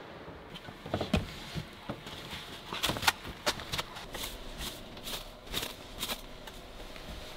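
Irregular light clicks and rustles of movement inside a small truck camper, densest in the middle and dying away near the end.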